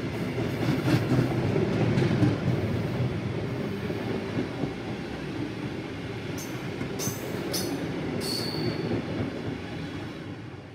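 Freight train hopper wagons rolling past on the rails: a steady rumble with wheel knocks, a few brief high wheel squeals about seven to eight seconds in. The sound fades near the end as the last wagon passes and moves away.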